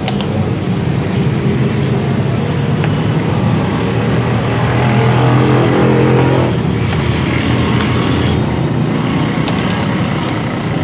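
A steady low motor drone that swells louder near the middle and then eases back.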